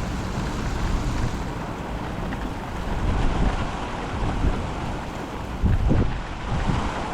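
Thunderstorm wind and rain buffeting the microphone: a steady rushing noise with irregular low gusts, the strongest about six seconds in.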